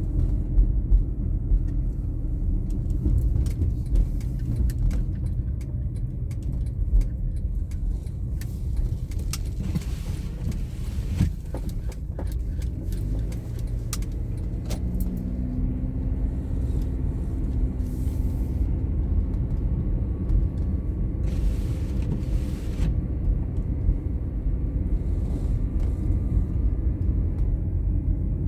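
Car driving on a snowy road: a steady low rumble of road and engine noise, with scattered small clicks and rattles.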